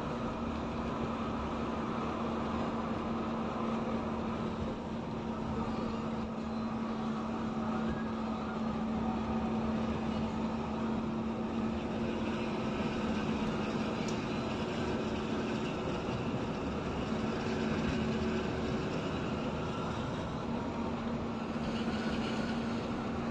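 Steady engine and road noise inside a vehicle cruising at highway speed, with a constant low hum.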